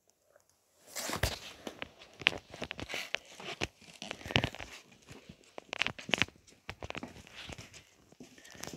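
Close, irregular rustling, scratching and sharp clicks, starting about a second in. These are the sounds of a small dog being petted by hand and moving about on the floor, with the phone being handled near the microphone.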